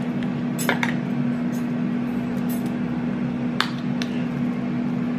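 A few light clicks and clinks of spice bottles being handled on the kitchen counter, over a steady low hum.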